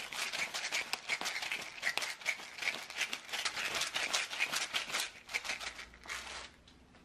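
Hand pepper grinder being twisted, grinding black peppercorns in a quick run of dry, crackling rasps that stop near the end.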